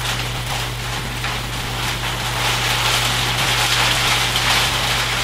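Steady hiss with faint crackle, growing a little stronger about two seconds in, over a constant low electrical hum: background noise on the audio line with no one speaking.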